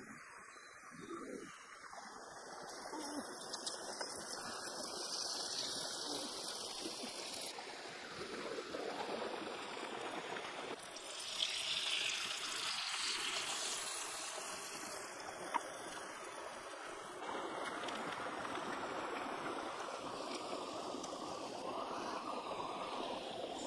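A rocky stream running and trickling, a steady rush of water that grows louder at times. One sharp click stands out about two-thirds of the way through.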